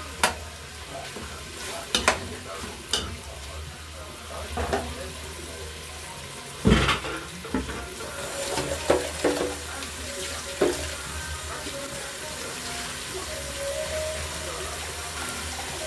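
Curry mutton sizzling as it browns in a hot pot, with a spoon scraping and knocking against the pot now and then and a heavier clunk about seven seconds in.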